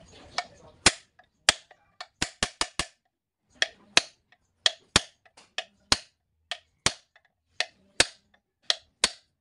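Hammer blows on a homemade rivet punch, setting the rivets that hold a new lining onto a truck brake shoe. About twenty sharp metal-on-metal strikes come at an uneven pace, some in quick runs of three or four.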